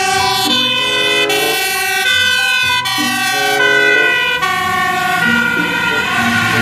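Fire engine siren sounding loud and steady, its pitch stepping back and forth between tones about once a second.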